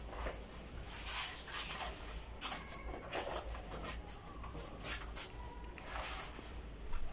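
Pasted wallpaper strip rustling and swishing against the wall as it is hung and pressed down by hand, in short scattered swishes.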